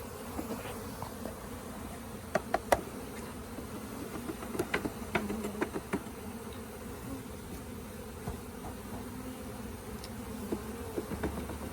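A mass of honeybees buzzing in a steady hum as a package of bees is poured into a hive. A few sharp knocks come about two seconds in and again around five seconds in.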